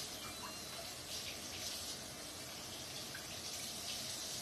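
Kitchen tap running while raw pork chops are rinsed under it, water splashing steadily into the sink, with a few faint knocks.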